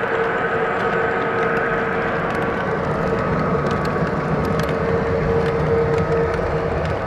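O gauge model train running on the layout: a steady rumble and hum with faint scattered ticks from the wheels on the track.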